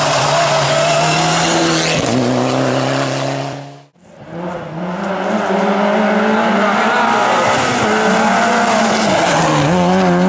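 Rally car engines running hard through corners: first a Mitsubishi Lancer Evolution, then, after the sound cuts out briefly near four seconds, a Peugeot 206 rally car. The engine note shifts in steps as the cars change gear through the bends.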